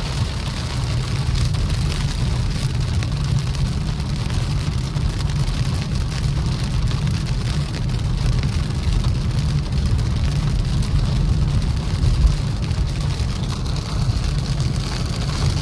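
Steady road noise inside a car driving through heavy rain: a low rumble of the car running on the wet road, with the hiss of rain on the body and windshield over it.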